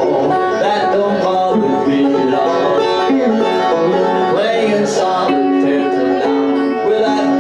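Banjo and electric guitar playing a bluegrass-country tune together live, with a few bent guitar notes near the middle.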